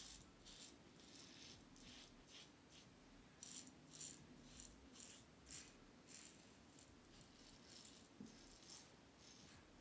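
Aylsworth Apex stainless steel double-edge safety razor with a Gillette Silver Blue blade cutting lathered beard stubble with the grain: faint, quick scratchy rasps, about two strokes a second.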